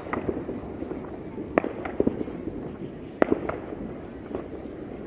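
Fireworks going off: irregular sharp bangs over a continuous crackle, with a few bangs close together about one and a half seconds and again about three seconds in.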